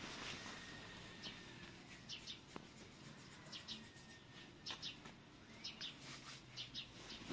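Faint chirping of small birds: short high chirps, mostly in twos and threes, about once a second.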